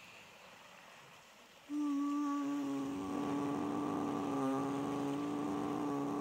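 A faint steady hiss, then about two seconds in a sustained tone with a ladder of overtones starts suddenly and holds one pitch, joined about half a second later by a second steady tone an octave lower.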